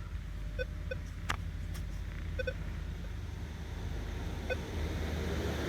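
Minelab Equinox 800 metal detector giving a few short target-tone beeps, some in pairs, as the dug item is swept over the coil: a solid signal around 28 on the discrimination numbers, though the item is not a coin. A sharp click sounds about a second and a half in, over a low steady rumble.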